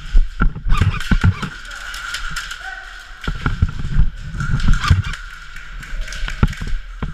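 Footsteps and gear knocks from an airsoft player moving through an indoor course: irregular low thuds and sharp clicks, with distant voices and a steady high hum underneath.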